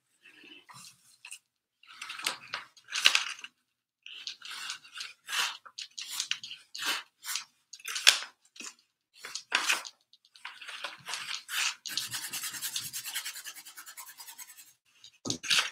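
A cloth rag rubbed hard over a stretched canvas, wiping paint on in a run of short scrubbing strokes. About ten seconds in it becomes a steadier, continuous scrubbing.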